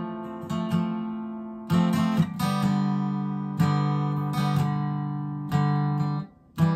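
Acoustic guitar strummed by hand, chords struck and left to ring and fade. Near the end the strings are stopped for a moment before one more strum.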